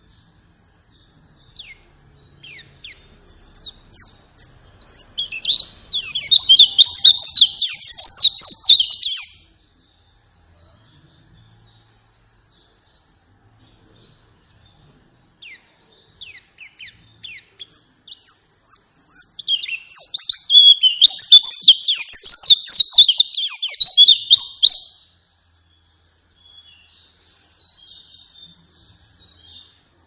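White-eye (pleci) song: two long bouts of rapid, high-pitched twittering, each starting with scattered chirps and building into a dense burst that stops abruptly, the first about nine seconds in and the second about twenty-five seconds in. Faint twittering follows near the end.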